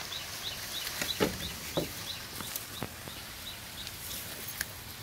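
Outdoor ambience: a small, regular high chirp repeating about three times a second, which stops about three seconds in, with a few light knocks and rustles scattered through.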